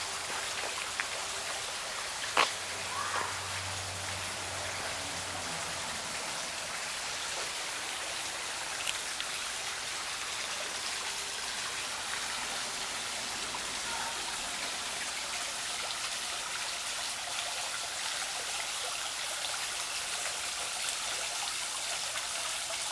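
Steady trickle of running water from a backyard pond's small waterfall and stream: an even, unbroken hiss. One sharp click about two and a half seconds in.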